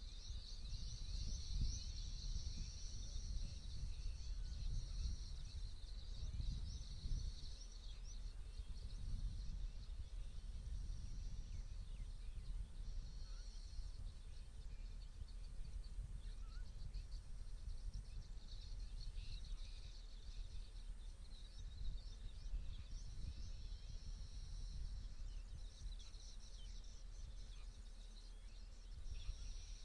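Outdoor grassland ambience: many small chirps of birds and insects in a high band that swells and fades in waves, over a steady low rumble.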